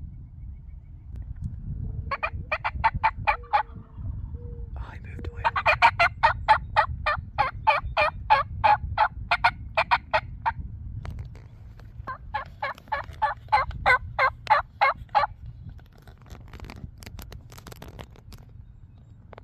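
Turkey yelping in three long runs of evenly spaced yelps, about four a second, the middle run the longest and loudest, over a low steady rumble.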